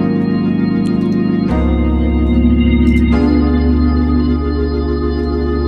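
Organ patch on the Omnisphere software synthesizer playing held chords, moving to a new chord about one and a half seconds in and again about three seconds in, with a slight wavering in the sustained tones.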